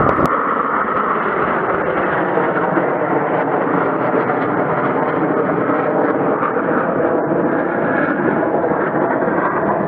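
Jet engine roar from the Blue Angels' F/A-18 Hornets flying overhead in formation, a loud steady rush that is strongest at the start.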